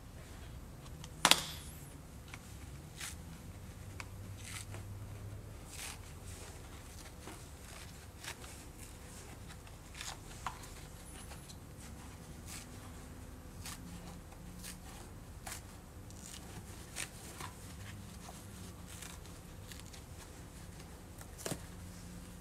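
Foam being handled and plucked inside a plastic hard case, with scattered light clicks and knocks against the case. One sharp click about a second in is much louder than the rest.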